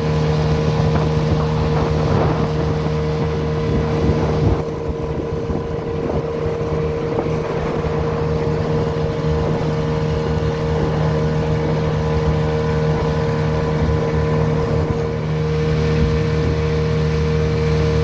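Outboard motor of a small aluminium boat running steadily at cruising speed, with the hiss of water and wind over the boat.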